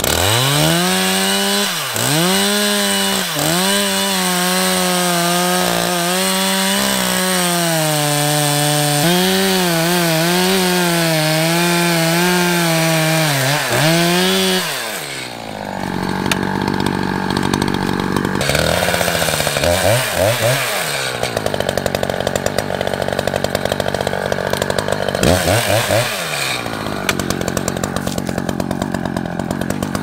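Echo Timberwolf 59cc two-stroke chainsaw cutting into the trunk of a standing pine at full throttle, the engine's pitch dipping briefly and recovering several times as the chain loads up in the wood. About halfway through it eases off for a moment, then runs on in the cut with a rougher note.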